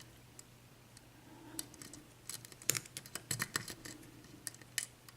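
Faint, irregular small clicks and scrapes of a lock pick working the pin stacks of a 6-pin Dorma mortise cylinder under tension during single-pin picking. The clicks are sparse at first and come thicker from about a second and a half in.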